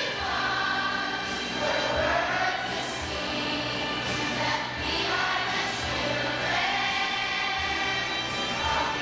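A large children's choir singing a song together, with long held notes.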